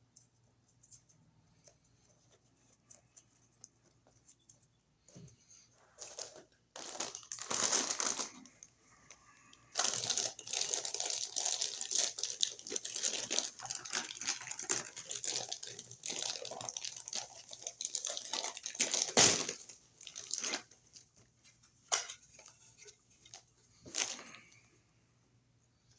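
Crinkling, crackling handling noise in bursts, densest through the middle, with a few sharp clicks near the end.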